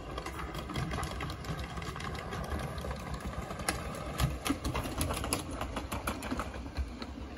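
Miniature 7¼-inch gauge locomotive running past with a rapid mechanical beat, its wheels clicking over the track, loudest about four to five seconds in as it passes closest.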